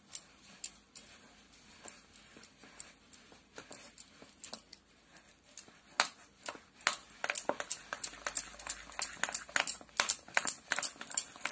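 A hand beating thick, sticky urad dal batter in a ceramic bowl, making a run of short wet slaps and clicks. They come sparsely at first and then faster, several a second, from about seven seconds in. The beating aerates the batter to make it fluffy for vadas.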